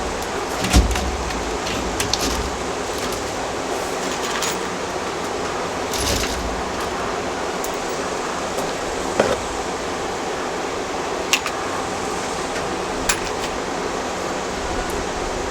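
Metallic clicks and clinks of 1/2-inch hardware mesh wire being cut and handled, a sharp snip every few seconds over a steady hiss.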